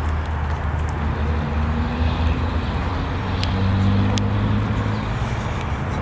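Footsteps crunching on a gravel trail, over a low engine drone that swells about four seconds in and then eases off.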